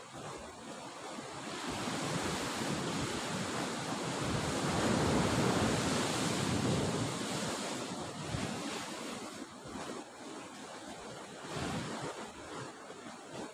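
Sea surf breaking below a cliff, one long wash of a wave swelling over several seconds and then falling away, with wind buffeting the microphone.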